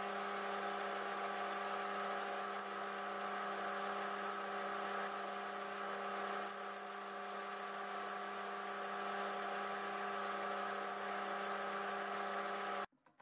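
Metal lathe running at a steady speed, spinning a steel part that is being polished with abrasive cloth: a steady motor hum with a whine. It cuts off suddenly near the end.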